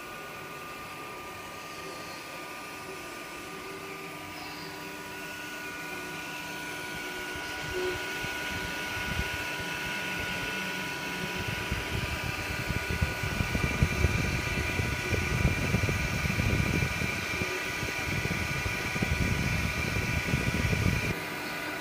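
Zortrax M200 3D printer running while it prints: a steady fan hum with a few constant tones, joined from about halfway in by a louder, irregular, rapidly changing whirr as the print head moves back and forth.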